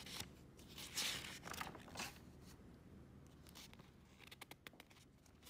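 Sheets of paper rustling as handwritten forms are handled and turned over. The loudest rustle comes about a second in, and a few fainter ticks follow later.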